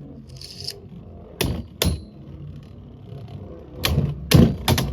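Two plastic-and-metal Beyblade Burst QuadStrike tops, Lightning Pandora and Divine Belfyre, spinning in the stadium bowl with a steady whir. They clash with sharp clacks: two about a second and a half in and a quick run of three near the end.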